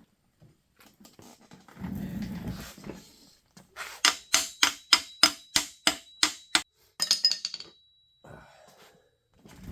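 A short low scrape, then about ten sharp metal taps, about three a second, with a faint ringing, and one last ringing clink: metal tools at work on a small engine's case after its bolts are out.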